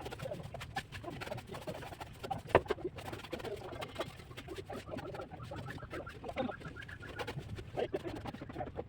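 Birds calling, mixed with many short, sharp taps and scrapes.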